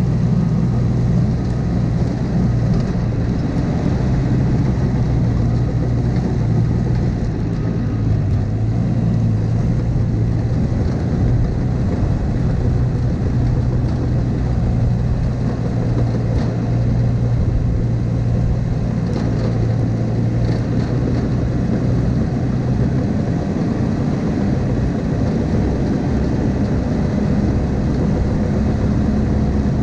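Heavy diesel engine of a Cat crawler machine running steadily, a constant low hum that barely changes.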